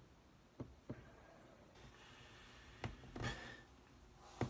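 A person breathing and sniffing quietly, with a few small clicks and a louder, sharper breath about three seconds in.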